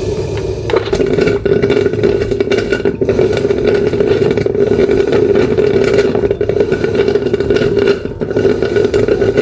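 A small electric motor running steadily at one speed with a strong, even hum, starting under a second in.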